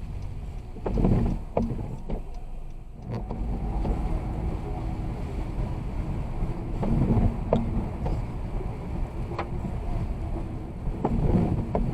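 Car driving on a snowy road: a steady low rumble of road and engine noise that swells louder a few times, with scattered short knocks.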